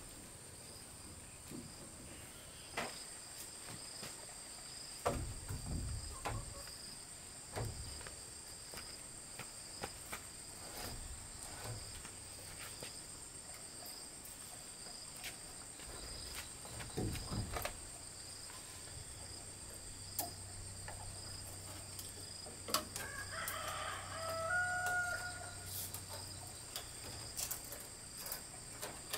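A rooster crows once, late on, over a steady high insect drone. There are scattered clicks and a few dull thuds.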